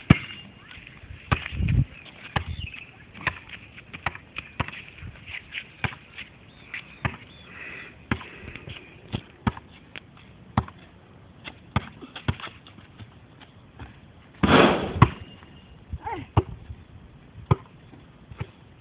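Basketball bouncing on a hard surface: a run of sharp bounces at about two a second, with a louder, longer burst of noise about fifteen seconds in.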